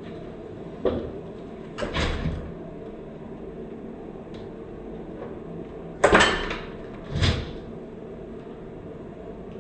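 Hard plastic clicks and knocks of a Duravit toilet seat and lid being worked on their quick-release hinges and lifted off: a sharp click about a second in, a short rattle near two seconds, then two louder clunks about a second apart near the six-second mark.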